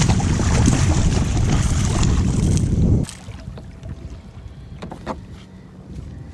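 Wind buffeting the microphone on a kayak on open water: a heavy, rumbling rush that cuts off suddenly about halfway through, leaving a much quieter stretch with a few light knocks.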